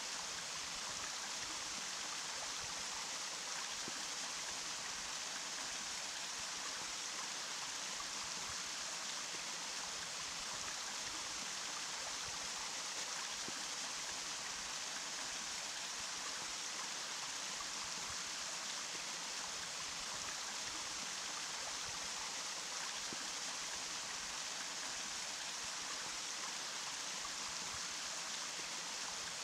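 Running water from a stream or small waterfall: a steady, even rush, bright and hissy, with little low rumble and no change throughout.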